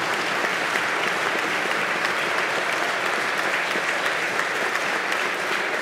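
Chamber full of legislators and guests applauding, many hands clapping at once at a steady level.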